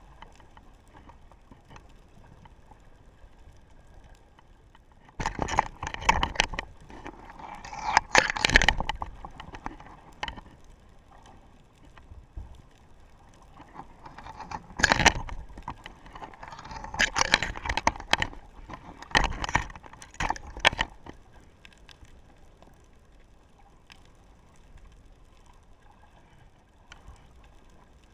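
Underwater, a dropped DJI Action 3 action camera knocking and scraping against the seabed in several loud crackling bursts as it is rolled about, starting about five seconds in and stopping a little past the middle, with a low water hiss between and after.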